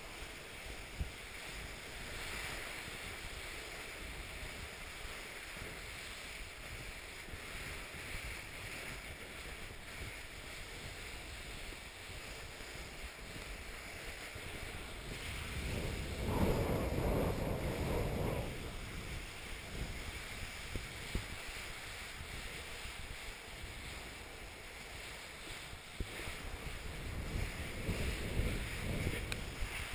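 Wind buffeting the microphone while skis slide and hiss over snow, with a louder rush of snow about sixteen to eighteen seconds in and another shorter one near the end.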